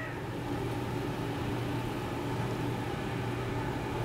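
Steady mechanical hum of a running Southern Pride commercial smoker, an even drone with a low tone.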